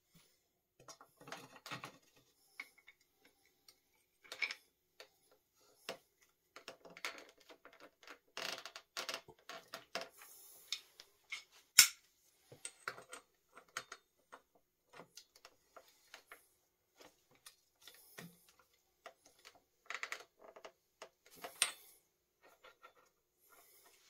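Irregular metal clicks and clinks of a ratchet wrench and splined bottom bracket tool at work in a bike frame's bottom bracket shell, with one sharp click about twelve seconds in.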